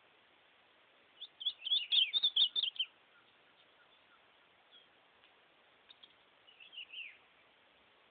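Caged azulão (ultramarine grosbeak) singing: a quick phrase of rapid warbled notes about a second in, then a shorter, softer phrase near the end.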